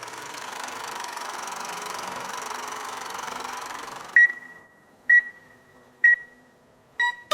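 A steady hiss-like noise for about four seconds, then four short, high electronic beeps about a second apart.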